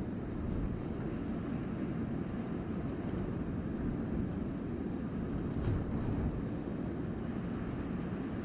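Blizzard wind blowing as a steady low rumble.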